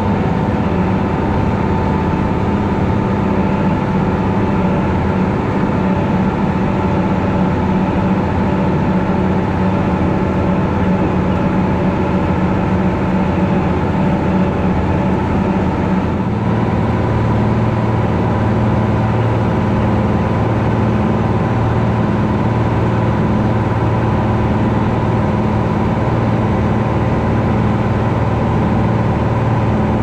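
International Harvester 1486 tractor's six-cylinder turbo diesel running steadily as the tractor drives across the field, heard from inside the cab. About halfway through, the engine's tone shifts as its speed or load changes.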